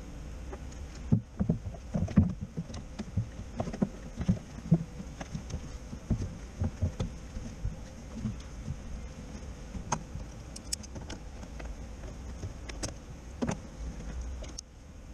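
Hard plastic air intake duct and air box parts knocking and clicking as they are handled and pressed into place by hand. A run of irregular light knocks gives way near the end to a few sharper clicks.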